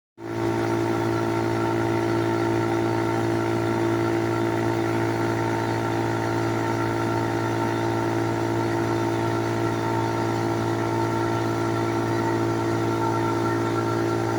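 Tractor engine driving a PTO disc wood chipper that runs empty at a steady speed, a steady even hum with no wood being chipped.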